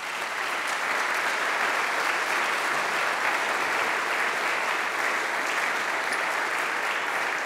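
Audience applauding: dense, steady clapping that starts up right at the beginning and holds evenly throughout.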